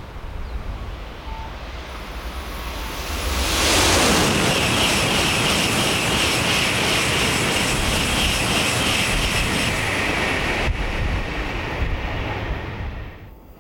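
N700-series Shinkansen bullet train passing through a station at high speed without stopping. A rush of air and wheel noise builds a couple of seconds in, holds loud and steady for about nine seconds as the train goes by, then drops away sharply near the end.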